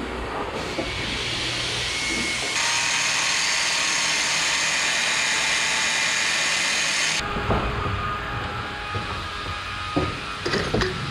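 Electric hand planer running and cutting a wooden timber, a loud steady hiss that stops abruptly about seven seconds in. After that come several sharp knocks of timber being handled.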